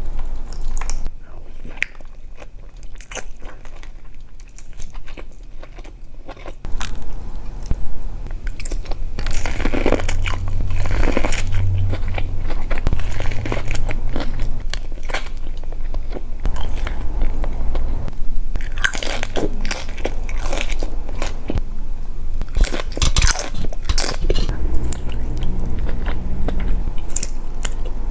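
Close-miked eating of a seafood boil: biting, chewing and crunching, with many irregular sharp cracks and clicks. It is quieter for the first few seconds and busier from about six seconds in.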